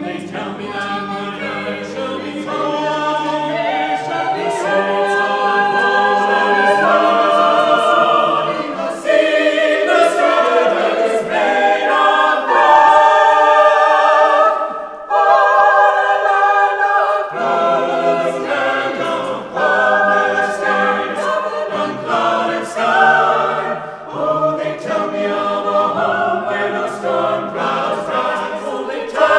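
Mixed chamber choir singing a cappella, growing louder over the first several seconds. The low voices drop out for a stretch in the middle while the upper voices carry on, then come back in.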